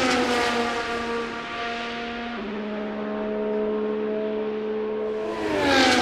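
Formula 1 cars' 1.6-litre turbocharged V6 hybrid engines at speed. One car passes at the start, its note dropping in pitch as it goes by. The engine sound then holds steady further off, and a second car passes near the end, again dropping in pitch.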